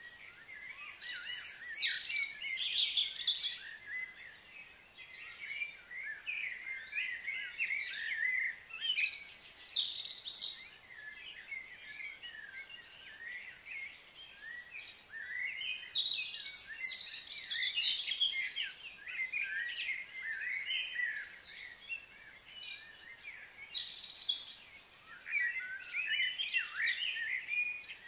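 Small birds chirping and twittering, many short overlapping calls coming in bouts with brief lulls between them.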